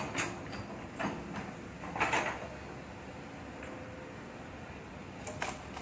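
Long-reach excavator working: its engine runs steadily under a few short scraping clanks from the bucket and boom, the loudest about two seconds in.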